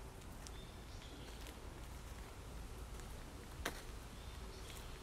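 Quiet woodland ambience with faint scattered rustles and ticks of walking on a dirt path strewn with dry leaves, and one sharper click about three and a half seconds in.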